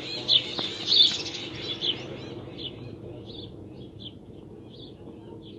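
A bird chirping in an evenly spaced series, a little more than one chirp a second, loud at first and fading away, over a steady low background hum.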